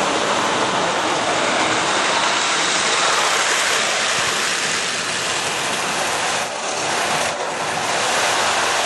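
O-gauge model train running on Lionel FasTrack, a steady, loud rushing rumble of wheels on the plastic-roadbed track, a little fuller as the cars pass close by near the middle.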